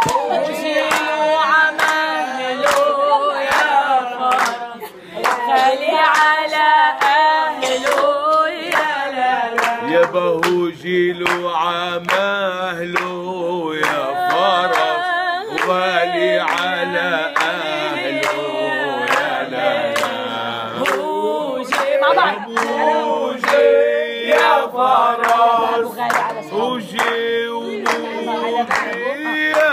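A woman and a man singing an Arabic song together, with steady hand-clapping keeping the beat.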